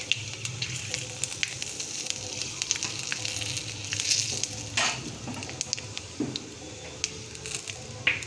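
Bay leaves and nigella seeds sizzling steadily in hot mustard oil in a kadai as they temper, with frequent sharp crackles and a few louder clicks.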